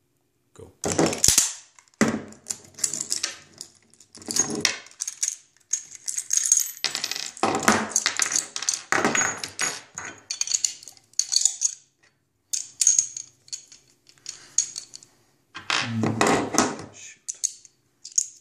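1911 pistol being rapidly disassembled and reassembled by hand: a fast, irregular run of metallic clicks, scrapes and clatters as steel parts such as the slide, barrel bushing, recoil spring and slide stop come apart, are fitted back and are set down on a wooden table, with a few brief pauses.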